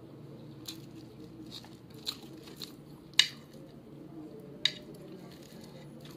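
Eating by hand at close range, rice and fried dried fish (tuyo): quiet chewing with a handful of short sharp clicks and smacks, the loudest about three seconds in, over a low steady hum.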